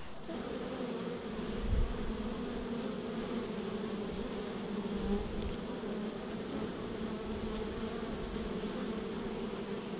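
Honey bees buzzing at a hive entrance, a steady hum of many wings, with a soft low bump about two seconds in.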